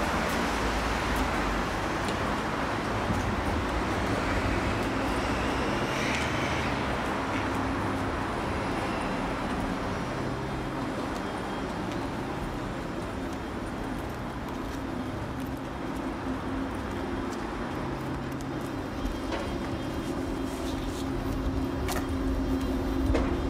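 Steady low rumbling noise, with a low steady hum growing stronger in the second half.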